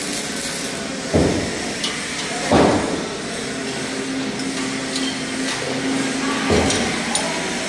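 Heavy metal knocks from a spanner and tools working on a steel hammer-mill pulverizer, three in all: two about a second and a half apart, a third a few seconds later. A steady machine hum runs underneath.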